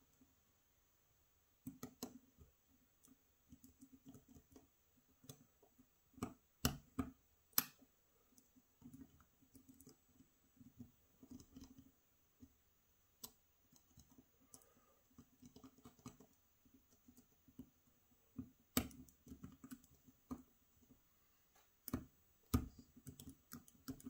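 Lock picking in a Gege AP3000 cylinder: faint, irregular small clicks and light scraping as a pick works the pins in the keyway under tension, with a few sharper clicks scattered through.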